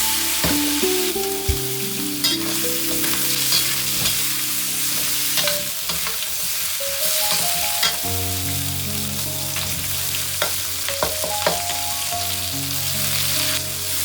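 Food sizzling hard in a hot pan while it is stir-fried, with the spatula scraping and tapping against the pan every second or so. Soft background music plays underneath.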